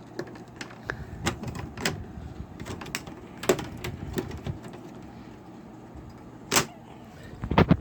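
Plastic back cover of a Samsung LCD TV being pried open: irregular clicks and cracks from the snap clips, with one sharper crack shortly before the end.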